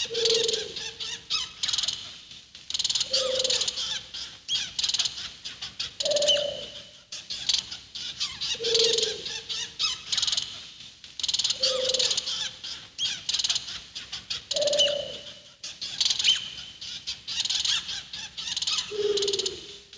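Night-forest ambience sound effect: a low, owl-like hoot repeating about every three seconds over dense, high-pitched chirping and twittering. It stops abruptly at the end.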